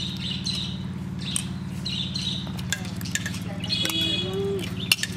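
Metal spoons clicking and scraping on plates, with birds chirping in the first half, a short voice about four seconds in, and a steady low hum underneath.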